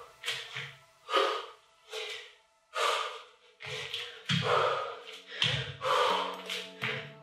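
A woman breathing hard during burpees: quick, sharp exhales and gasps, about a dozen of them at an uneven pace of roughly one every half second to second.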